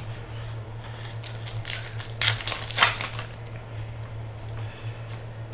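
Foil trading-card pack wrapper crinkling and rustling as it is handled, with a few sharp rustles about two to three seconds in, over a steady low electrical hum.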